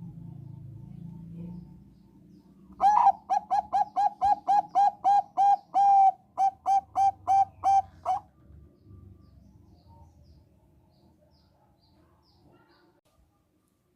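Zebra dove of the Thai 'Bangkok' line singing: a quick run of about eighteen short, clipped cooing notes, about three a second, lasting some five seconds, with one longer note and a brief break just after the sixth second.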